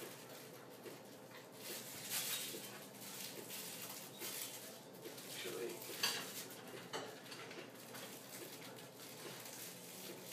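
Kitchen clatter of dishes and utensils being handled, with scattered clinks and a sharper knock about six seconds in, over a pancake sizzling in a frying pan.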